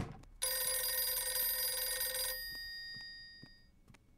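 Old-style rotary desk telephone bell ringing once for about two seconds, then dying away, an incoming call. It is preceded by a brief thump and ends with clicks as the handset is grabbed.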